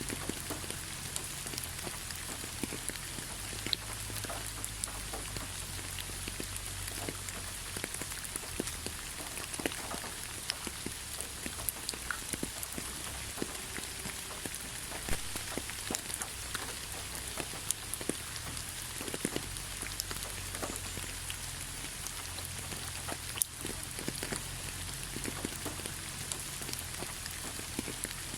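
Steady rain falling on a hard surface, with many separate drops ticking through the even hiss.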